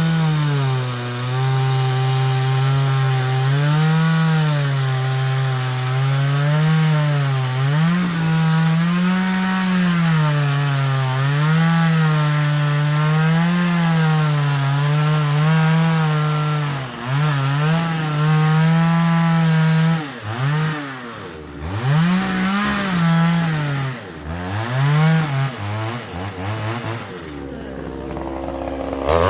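Two-stroke chainsaw cutting pine timber, its engine speed rising and falling every couple of seconds as the bar loads up in the cut. About two-thirds of the way through it is throttled up and down several times, then drops toward idle near the end.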